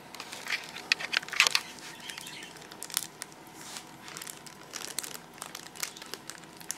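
Plastic bag and shredded-paper packing crinkling and rustling as they are handled: irregular soft crackles, a little louder about a second and a half in.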